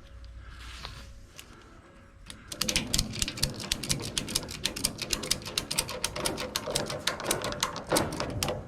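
A rapid, dense run of sharp clicking and clattering, many hard little impacts a second, starting about two and a half seconds in after a low hum.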